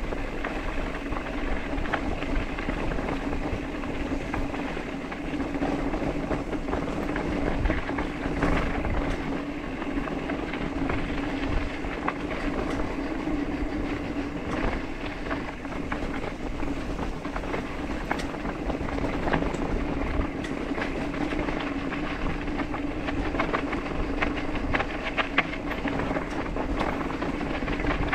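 Mountain bike rolling along a dirt trail: steady tyre noise on loose dirt and gravel, with constant clicking and rattling from the bike over the bumps.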